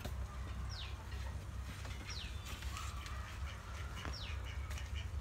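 A bird calling again and again, each call a short high whistle falling in pitch, roughly every one to two seconds, over a steady low rumble.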